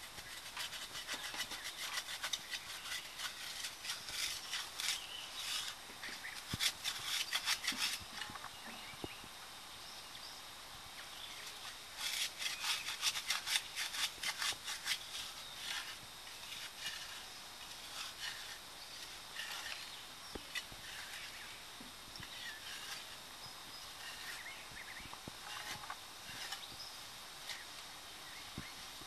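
Hand tools scraping and scratching away soil around a buried pottery jar, in quick repeated strokes. There is a long spell of brisk scraping at the start and another near the middle, with lighter, scattered scratches between.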